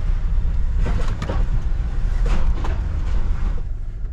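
Camper van's engine and road rumble heard inside the cab as it creeps forward at low speed, with a few short light clatters.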